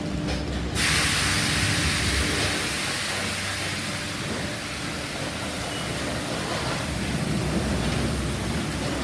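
Automatic tunnel car wash: a loud hiss of water spray and cloth brushes on the car starts suddenly about a second in and runs on, slowly easing, over a steady low rumble of the wash machinery.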